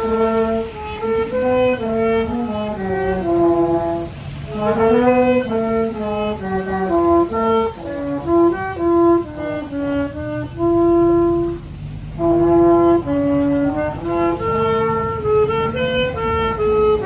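A saxophone and a French horn playing a tune together in two parts, with the notes moving step by step and a few held longer.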